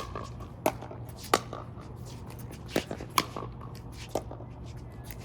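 Pickleball rally: sharp pops of paddles striking a hard plastic ball, with fainter pops between them, about six loud ones at irregular intervals.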